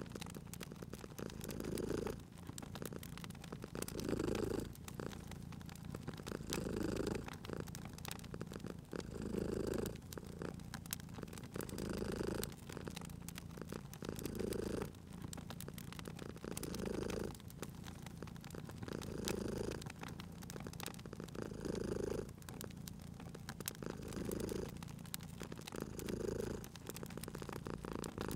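Domestic cat purring steadily, swelling about every two and a half seconds with each breath, over a wood fire crackling with frequent small pops.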